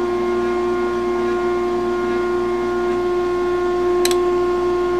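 Hobby CNC router running with a steady, high-pitched whine; a lower tone in it stops about three seconds in, and there is a sharp click about a second later.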